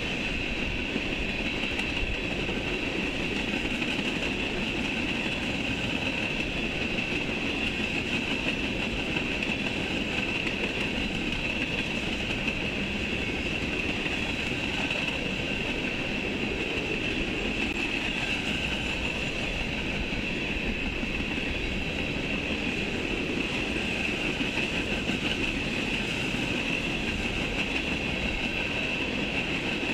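Freight train of tank cars rolling past at steady speed: a continuous rumble of wheels on rail, with a steady high-pitched ring over it.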